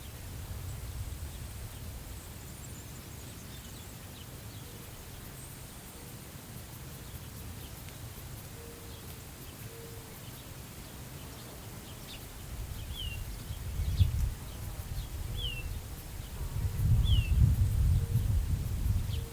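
Prairie wind buffeting the microphone as a low rumble, building in the second half and strongest near the end. A bird calls three short, falling notes partway through.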